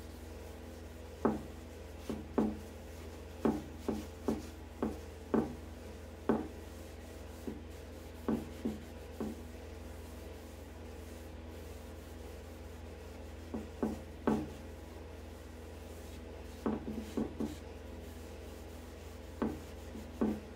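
A pad of 0000 steel wool rubbing finish restorer into a wooden chair seat with the grain: a series of short, irregular scrubbing strokes over a steady low hum.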